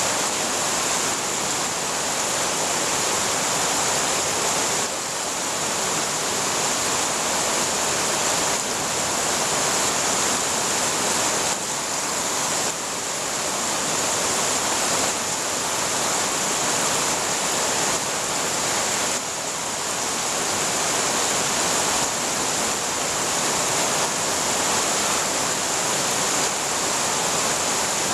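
Heavy summer rain pouring down on garden plants and leaves: a steady, dense hiss that dips briefly in level a few times.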